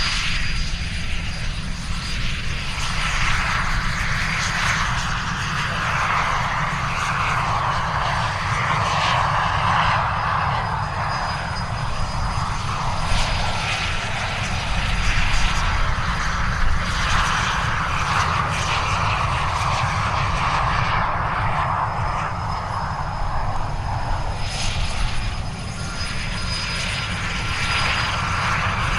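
Canadian Forces Snowbirds' CT-114 Tutor jets, each with a single J85 turbojet, flying the display: a continuous jet rush and whine that swells and fades in waves as the aircraft pass, over a steady low rumble.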